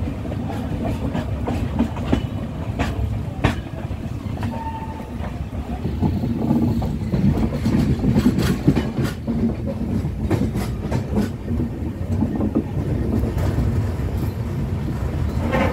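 Express passenger train running at speed, heard from a coach doorway: a steady low rumble of wheels on rail, with irregular clicks and knocks as the wheels cross rail joints.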